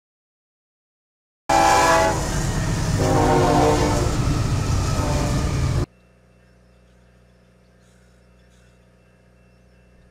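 Norfolk Southern diesel locomotive's air horn sounding a chord over the rumble of the passing train. It starts suddenly about a second and a half in, drops in pitch partway through, and cuts off abruptly about six seconds in, leaving a faint low hum.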